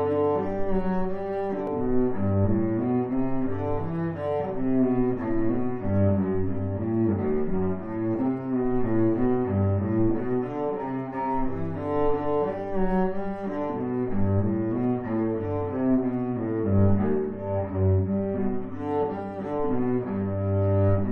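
Background instrumental music: a steady succession of low, sustained notes.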